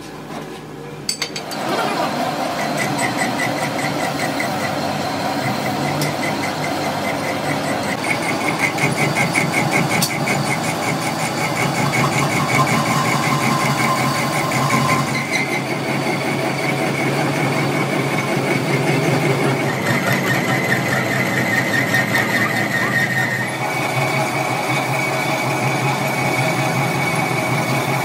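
Metal lathe running as a cutting tool turns down a steel truck trunnion shaft. The machine sound comes up after a few clicks about a second in, then runs steadily with a whine that shifts in pitch a few times.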